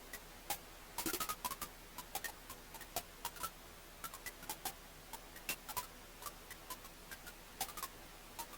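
Wood fire in a fireplace crackling: irregular sharp pops and snaps over a faint steady hiss, with a quick cluster of pops about a second in.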